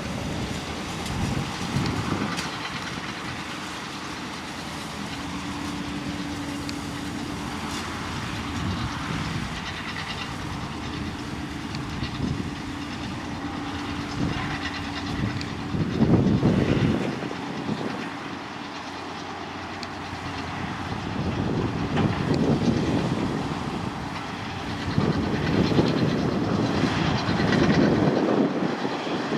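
Tractor engine running under load with a big square baler working, a rhythmic mechanical clatter over the engine drone. It swells louder about halfway through and again near the end.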